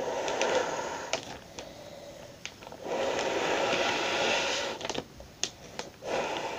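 A person blowing breath into a large plastic Ziploc bag to inflate it: long, steady exhalations, two full ones and a third starting near the end. Between them come short breaks with a few light crinkles and clicks of the plastic.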